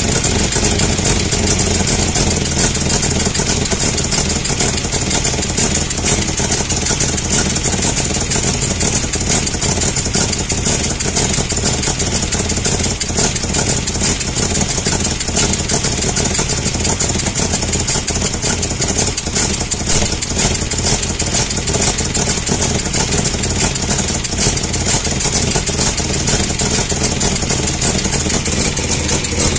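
1991 Toyota 4Runner's 3VZ-E 3.0-litre V6 idling steadily and sounding horrible. The owner puts part of it down to an exhaust leak at the exhaust studs and part to a bad sound inside the engine.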